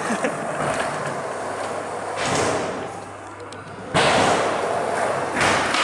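Skateboard wheels rolling on the concrete floor and wooden ramp, with a sudden loud impact about four seconds in as the board hits the ramp, followed by about a second of louder rolling.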